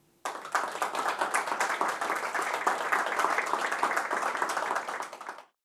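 Audience applauding, starting a moment in and cut off abruptly near the end.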